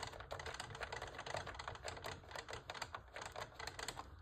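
Small screws being tightened with a screwdriver into a plastic model part: a fast, uneven run of faint light clicks.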